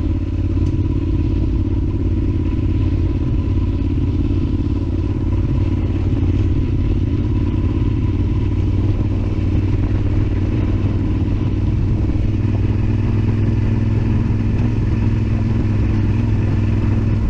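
Yamaha Super Ténéré XT1200Z's 1200 cc parallel-twin engine running at steady revs as the motorcycle is ridden along a dirt trail.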